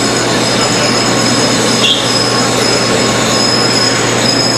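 Metal lathe running steadily, its gear train giving a steady high-pitched whine over a constant low hum.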